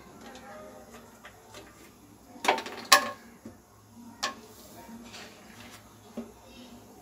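Plastic slotted spatula stirring cashews roasting in ghee in a non-stick pan, with a few knocks and scrapes against the pan; the loudest are two knocks close together about three seconds in.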